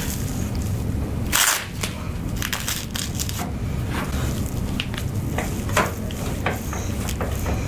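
Crunching and cracking during a chiropractic adjustment of a patient's back. There is a short loud crunch about a second and a half in, then a quick cluster of cracks and a few scattered clicks over a low steady hum.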